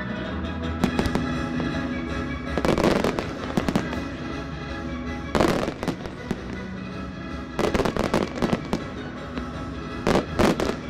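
Aerial firework shells bursting in clusters of sharp bangs, about five volleys, the loudest about halfway through and near the end, over the display's accompanying music.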